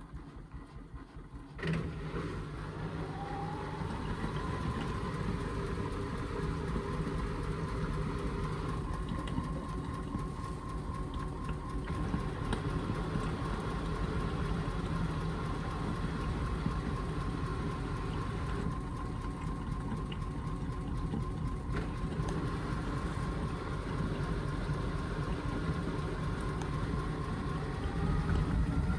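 Indesit washing machine's motor starting an intermediate spin on a full cotton load: about two seconds in, the drum speeds up with a rising whine. The whine then holds steady over a low rumble, and near the end it starts climbing again as the spin speeds up further.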